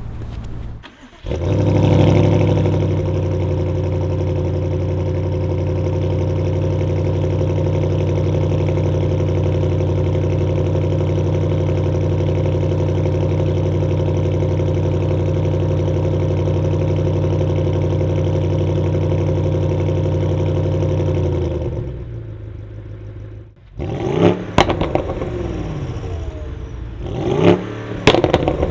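A BMW M550i's twin-turbo 4.4-litre V8, breathing through high-flow catted downpipes, starts about a second in with a loud flare and settles into a steady idle. Near the end, after a brief lull, it is revved twice, rising and falling, with sharp cracks as the revs drop.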